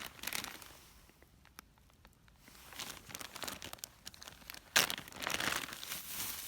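Crinkling and rustling handling noises, like packaging or gear being handled, in irregular bursts with a sharp click about three-quarters of the way through.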